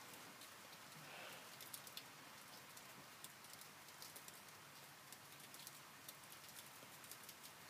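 Near silence: faint outdoor hiss with scattered light ticks.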